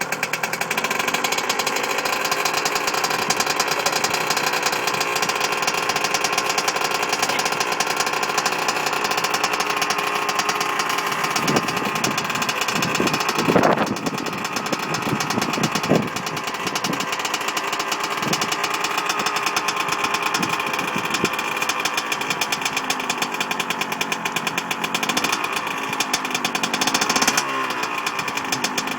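Freshly rebuilt two-stroke motocross bike engine running just after its first kick-start, idling steadily and revved briefly several times in the middle and once near the end.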